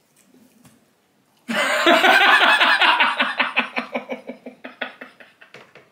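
A man laughing hard: a run of quick laugh pulses starts about a second and a half in and gradually trails off.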